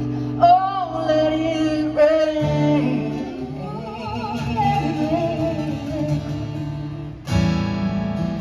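The closing bars of a country-gospel song: a singer holds and bends the last sung notes over guitar accompaniment. A final full chord is struck about seven seconds in.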